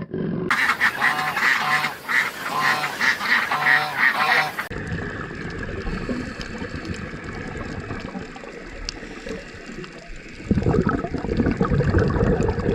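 Ducks quacking in a quick run of repeated calls for about four seconds, then a quieter, steadier stretch, and a loud rushing noise in the last couple of seconds.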